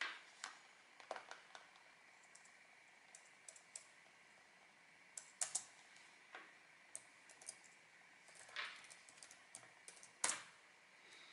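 Quiet, irregular key clicks from typing on a laptop keyboard, coming in short runs with pauses between them. One key strike about ten seconds in is louder than the rest.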